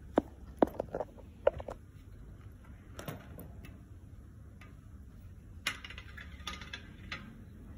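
A hamster moving about its cage: a quick run of sharp taps and knocks in the first two seconds, a few more around three seconds in, then crackly rustling in shredded paper bedding about six seconds in.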